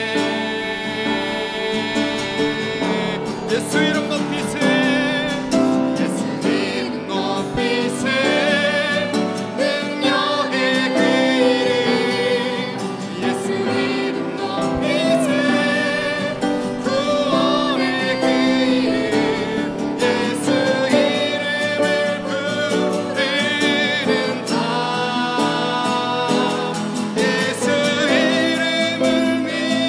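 A man singing a Korean worship song while playing an acoustic guitar.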